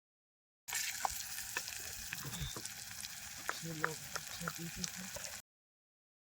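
Cooking over a campfire: a steady sizzling hiss with many scattered sharp pops and crackles, starting just under a second in and cutting off abruptly near the end.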